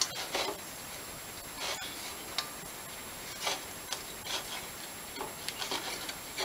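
Metal intake adaptor being fitted by hand onto a Honda GX160 cylinder head: a string of short scrapes and light clicks of metal against metal.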